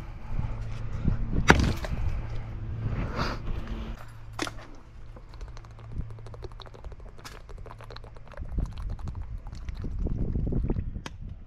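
Two sharp sledgehammer blows on broken concrete, about a second and a half in and again near four and a half seconds, the first the loudest. After them comes a thin-walled plastic water bottle being squeezed, crackling in the hand.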